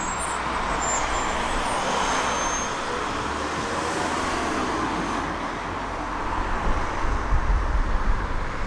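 Two-car electric tram passing at close range, its steel wheels rolling on the rails with a steady rumbling hum. A faint high squeal comes in briefly about two seconds in.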